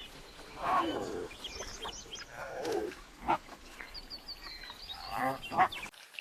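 An animal making short calls, about three of them, with some sharp clicks. A thin, high chirping runs for about a second near the middle. The sound drops away abruptly just before the end.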